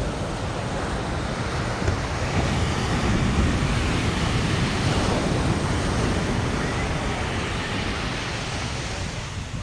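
Ocean surf breaking and washing up a sandy beach: a steady rush that swells a couple of seconds in and eases off near the end, with wind buffeting the microphone.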